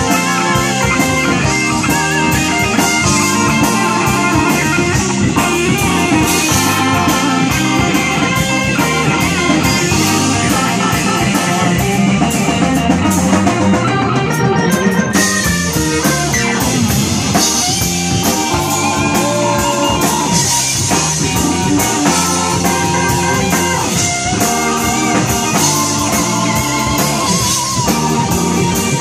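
Live blues band playing: electric guitars, keyboards, bass guitar and drum kit, with a steady beat.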